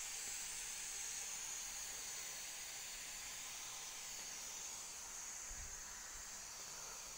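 Aluminium pressure cooker on a gas stove hissing steadily as steam escapes at its whistle weight while it cooks under pressure, growing slightly fainter toward the end.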